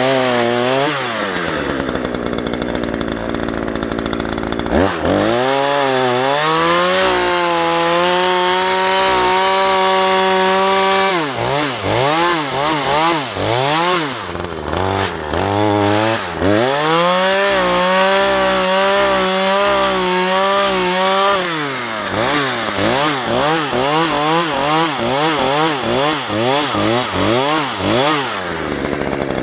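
Two-stroke chainsaw revving in bursts. Twice it is held at full throttle for about four seconds. Near the end the throttle is pulsed rapidly up and down.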